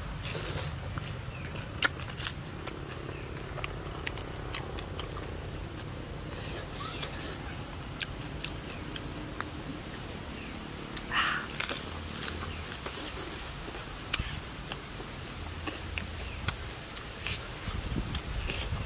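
Close-miked eating sounds: scattered mouth clicks and smacks as a man chews grilled fish and grilled bamboo shoot, with a brief breathy puff about eleven seconds in. A steady high insect tone runs underneath.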